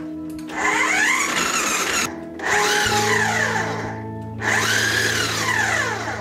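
Food processor motor run in three short pulses, each about a second and a half, its whine rising and then falling away within each pulse.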